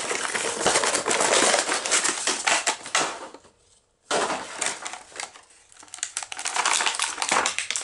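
Toy packaging being torn open by hand: a dense run of crinkling, tearing and crackling. It breaks off sharply for about half a second midway, then more tearing and rustling follows.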